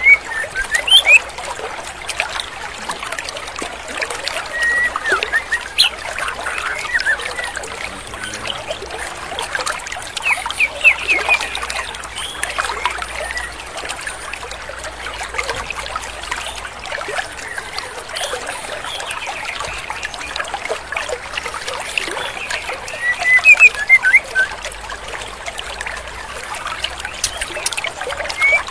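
Female white-rumped shama (murai batu) calling in short groups of quick chirps every few seconds, over the steady rush of a flowing stream.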